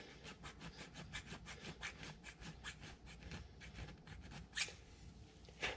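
Small hand file scraping metal in quick, even strokes, filing out the keyway of a metal lathe gear by hand. Two louder, sharper strokes come near the end.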